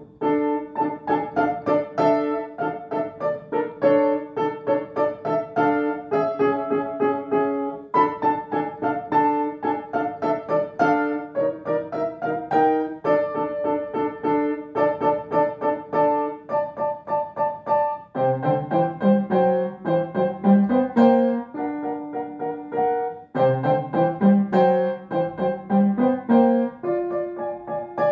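Upright piano played solo: a steady melody over repeated chords. A lower bass line enters about two-thirds of the way through.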